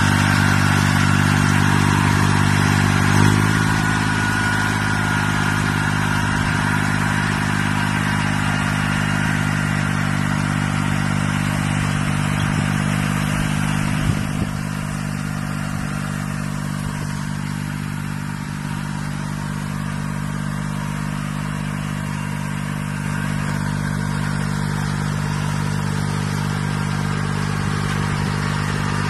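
Tractor engine running steadily under load while pulling a four-row pneumatic precision planter, with a steady higher whine above the engine note. A single sharp clank about three seconds in and a smaller one near the middle.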